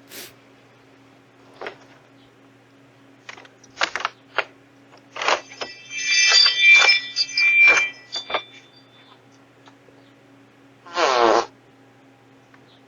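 Ring doorbell camera audio with a steady low electrical hum and scattered short clicks and knocks. In the middle comes a cluster of high squeaky sounds, and near the end a short pitched fart lasting about half a second.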